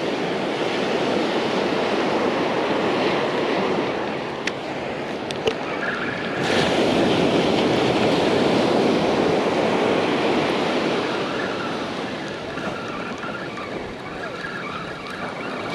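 Ocean surf: small waves breaking and washing up onto a sandy beach in a steady rushing wash that grows louder a little after six seconds in.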